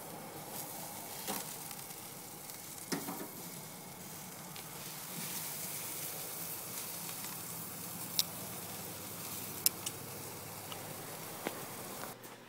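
Meat, including New York strip steaks, sizzling on a charcoal grill grate: a steady hiss with several sharp pops and clicks scattered through it.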